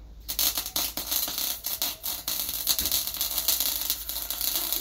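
MIG welder's arc crackling steadily as a weld is run, starting just after the beginning.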